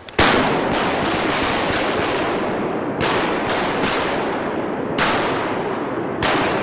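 Several shotguns fired at ducks in a volley: a quick run of shots starting about a quarter-second in, then more shots around three to four seconds in and single shots near five and six seconds. The shots ring out with long echoes that fill the gaps between them.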